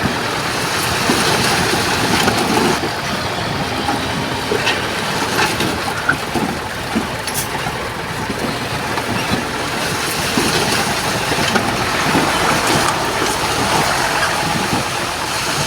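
Diesel engine of heavy earthmoving machinery running steadily, its loudness rising and falling, with a few short metallic clanks.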